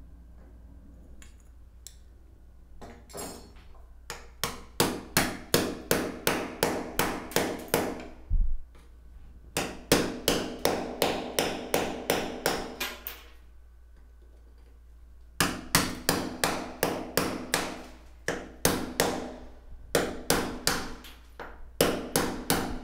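Hammer driving a chisel to chip ceramic wall tile and its mortar bed from around a shower valve. Quick, sharp blows at about four a second come in several runs separated by short pauses, starting about four seconds in.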